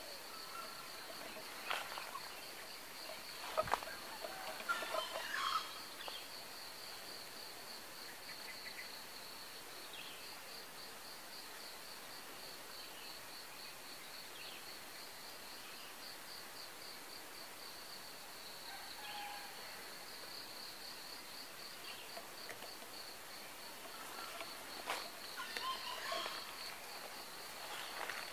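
Steady, fast-pulsing high insect chirr, with a distant wild junglefowl crowing now and then: short calls about five seconds in and again near the end.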